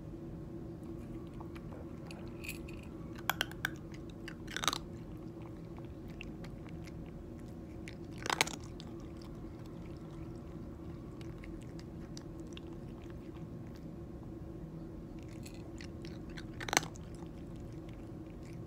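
A tabby cat crunching dry kibble from a plate, with a few sharp crunches standing out over a steady low hum.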